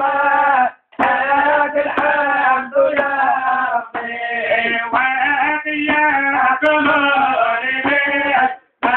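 Male voice singing a chant in long phrases, the pitch sliding and bending within each phrase, with two short breaks: one about a second in and one near the end.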